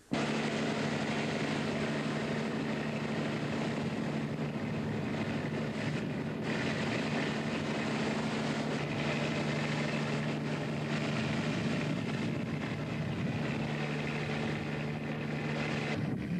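A fishing vessel's engine runs steadily: a constant low hum under a loud, even rush of noise. The hum breaks off briefly near the end.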